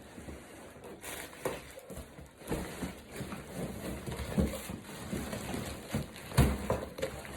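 Rustling and scraping of a stroller's carry bag and packaging as the folded double stroller is pulled out, with scattered knocks and a louder thump about six and a half seconds in.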